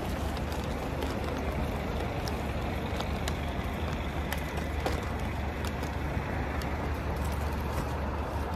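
Steady city-street traffic noise with a low rumble, and scattered small sharp clicks throughout.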